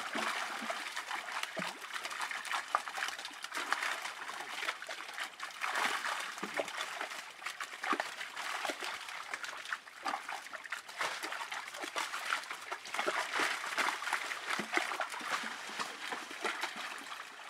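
Many fish splashing and thrashing in a seine net crowded into shallow pond water, a dense, continuous patter of small splashes and drips as hands work through the catch.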